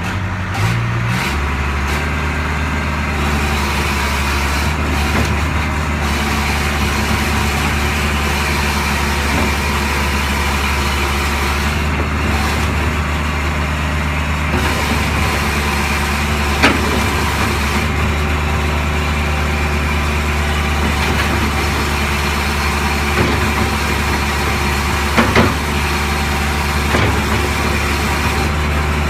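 Kubota KH400-7 excavator's diesel engine running steadily at one speed, with a few sharp knocks in the second half.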